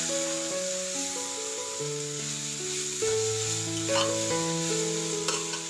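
Coconut, onion and spice masala sizzling in oil in an aluminium pressure cooker as it is sautéed with a metal spoon, with a few spoon clicks against the pan in the second half. Instrumental background music plays throughout.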